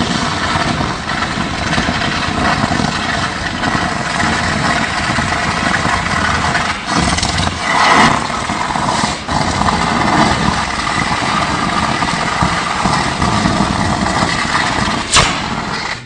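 A sustained high-voltage electric arc between an electric train's roof and its overhead line, a loud, continuous buzzing crackle that swells and fades. This is a short-circuit fault. There is a single sharp crack near the end.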